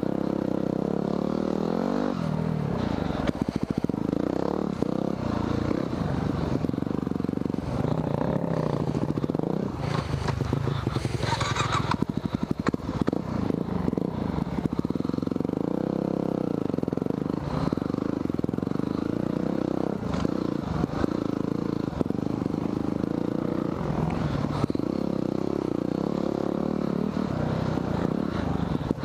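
Yamaha WR250R dual-sport's single-cylinder four-stroke engine running on a dirt trail, its pitch rising and falling with the throttle, with clatter and knocks from the bike over rough ground. A brief hiss comes about eleven seconds in.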